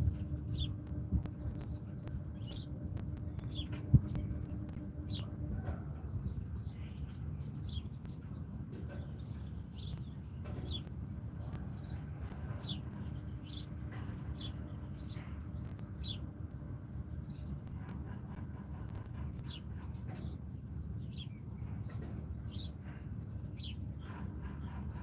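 Small songbirds chirping, short high notes repeating about once or twice a second, over a steady low rumble.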